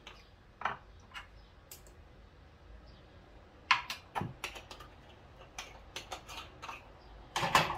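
Light clicks and taps of a small glass spice jar with a metal lid and a small metal measuring spoon being handled while turmeric is measured out. The taps come singly at first, then in a quick cluster about four seconds in, with more near the end.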